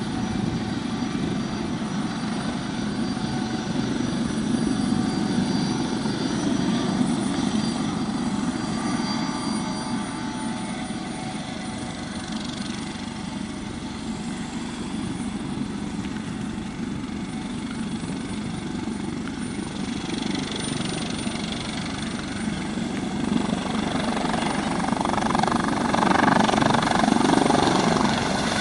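Eurocopter AS565 Panther twin-turbine helicopter running, a steady turbine whine with several high tones over the rotor noise, getting louder over the last few seconds.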